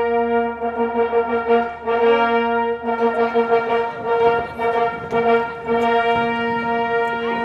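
A long, steady horn tone held at one unchanging pitch, rich in overtones and briefly dipping a few times, with faint fireworks crackle underneath.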